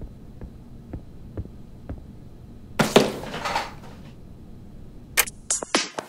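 Soft footsteps, about two a second, then a cardboard LEGO Technic box set down on a wooden desk and slid across it, a thud and a scrape lasting about a second. A sharp click follows about five seconds in, and electronic music with a drum-machine beat starts near the end.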